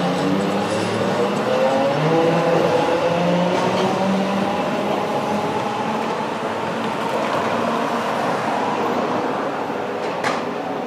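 Sapporo streetcar running, its motor whine rising slowly in pitch as the tram accelerates. A single sharp click comes near the end.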